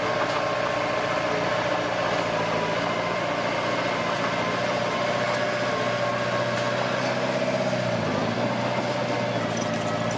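Komatsu D21P bulldozer's diesel engine running steadily; about eight seconds in its note drops and settles lower.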